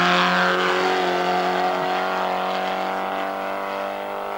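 Race car engine at high revs, holding one steady note that sags slightly and fades as the car draws away up the hill.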